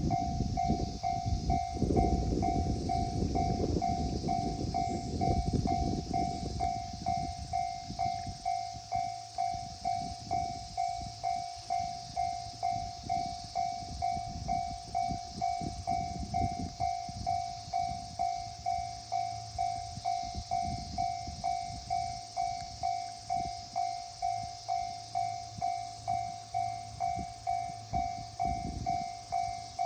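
Japanese level-crossing alarm ringing, an electronic ding repeating about twice a second, over the rumble of a passing train that fades away over the first several seconds.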